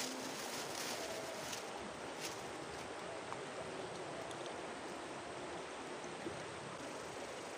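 Shallow river rushing over a stony bed: a steady wash of flowing water, with a few light clicks.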